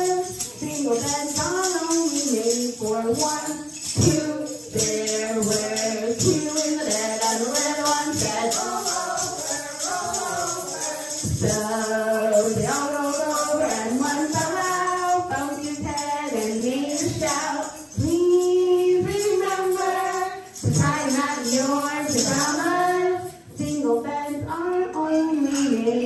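Women singing a children's song while shakers and tambourines jingle along to a steady beat.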